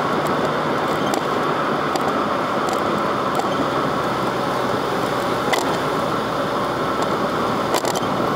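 Steady road and engine noise inside the cabin of a Volkswagen Gol Bola at highway speed, with a few faint clicks scattered through.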